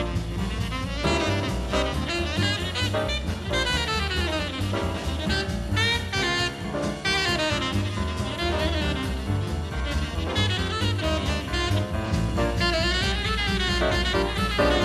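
Jazz music soundtrack, a horn carrying the melody over steady bass and drums.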